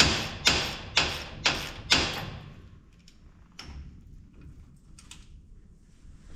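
Hand tool working on the drill's gearbox: sharp metallic strokes, about two a second, through the first two seconds, then only faint clicks and handling.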